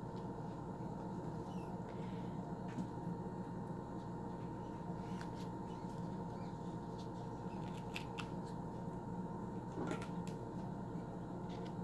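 Soft handling sounds of fingers peeling back and shifting leathery, cut-open ball python eggs and lifting one off a plastic grid, with a few light clicks, over a steady background hum.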